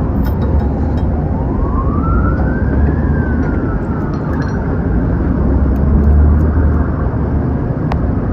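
Emergency-vehicle siren wailing, its pitch slowly rising and falling, over a steady low rumble; a single sharp click near the end.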